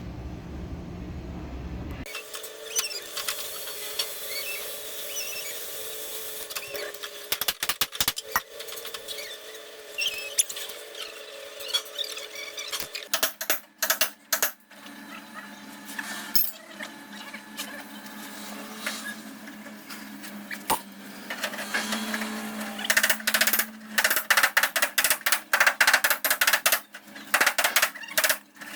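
Irregular light metal taps and clicks from paintless dent repair tools working a dented car body panel, becoming rapid and louder near the end, over a steady faint hum.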